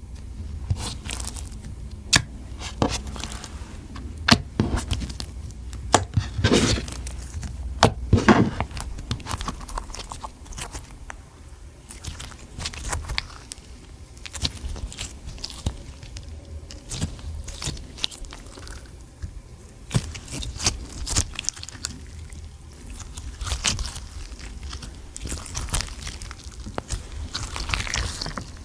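Slime being kneaded and pressed by hand, giving off irregular sticky clicks, pops and crackles.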